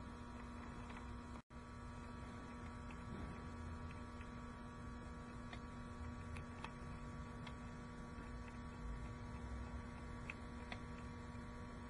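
Steady electrical hum made of several even tones, with a few faint scattered ticks. It cuts out for an instant about a second and a half in.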